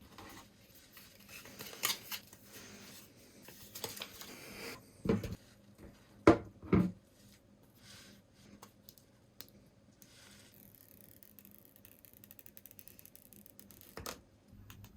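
Hands handling and opening an iPhone 15 Pro box: paper and cardboard packaging scraping and rustling, with small clicks and taps, and three louder knocks about five to seven seconds in. Later comes a faint fizzing hiss with rapid ticking, and a single click near the end.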